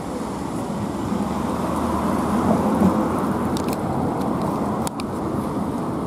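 Steady city traffic rumble, with a few faint clicks about four to five seconds in.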